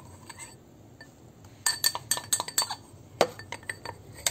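Metal spoon clinking and tapping against a glass mixing bowl as spoonfuls of cornstarch are knocked in. A quick run of clinks comes from about a second and a half in, with another clink later and more near the end.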